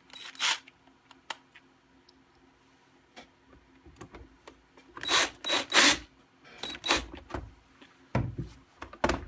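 Plastic knocks, clicks and scraping from a label printer's housing parts being handled and pushed back into place, with a cluster of louder knocks about five seconds in.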